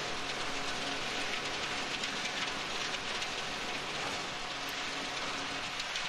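Wet ready-mix concrete being discharged from the truck's chute and pushed and pulled with rakes: a steady, gritty, rain-like hiss. Under it the concrete truck's engine runs at a steady hum.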